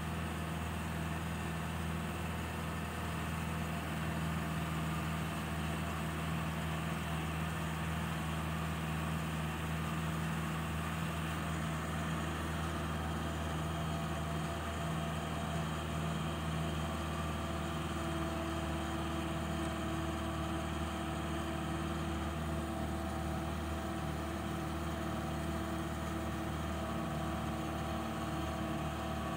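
Engine of a jeep running steadily as it drives along a paved road, heard from on board, with a constant low hum and road noise. One of its tones grows a little stronger about halfway through.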